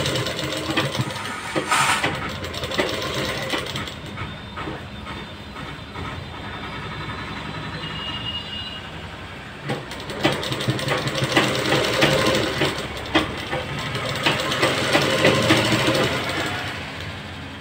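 Electric sewing machine running in spurts as it stitches cloth, with a fast even clatter of the needle mechanism. It is quieter for a few seconds in the middle, then runs steadily again.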